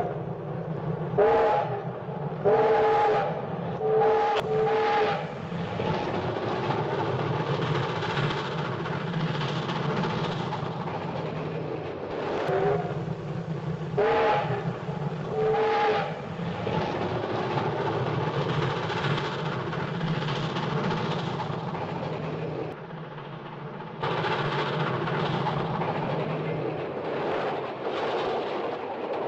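Train whistle blowing a series of short, chord-like blasts over the steady rumble of a running train: a quick group of four blasts in the first few seconds, then three more about twelve to sixteen seconds in.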